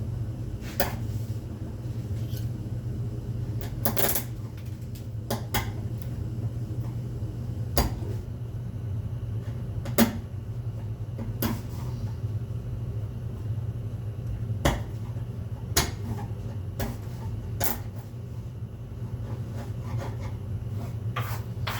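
Wood chisel scraping and chipping excess cured epoxy off the surface of a board: short, sharp scrapes and clicks at irregular intervals, about one every second or two, over a steady low hum.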